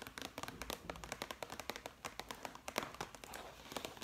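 Long fingernails tapping and clicking on a clear plastic document folder: many quick, irregular taps, with one louder click about three seconds in.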